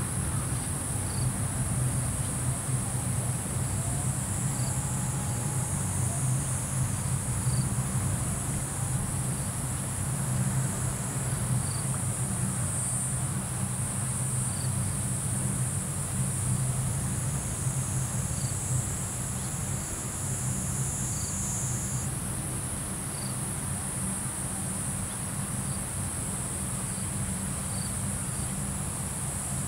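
A steady, high-pitched chorus of insects, with scattered short chirps, over a low steady hum.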